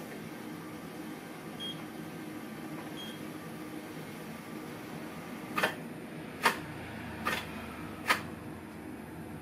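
Hiroshima Electric Railway 1900-series tram running, heard in the cab as a steady hum. After about five and a half seconds come four sharp clicks, a little under a second apart, as the wheels pass over the track, with a low rumble growing under them.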